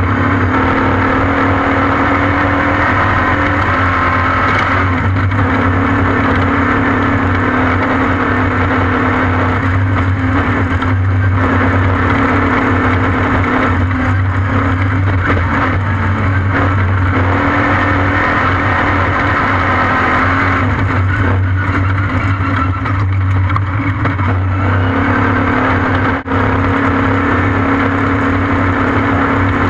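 Off-road race vehicle's engine running at a fairly steady pitch, with a continuous rushing noise. Loudness dips briefly about 26 seconds in.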